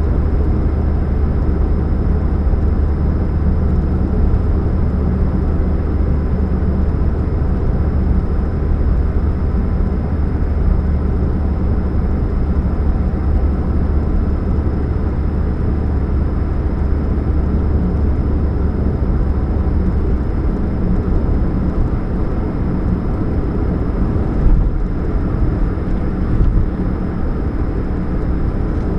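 2013 Chevrolet Spark running with a steady low hum, the humming that is put down to an exhaust leak at the catalytic converter.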